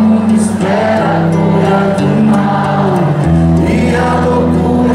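Live music: a man singing a melody into a microphone while playing an acoustic guitar.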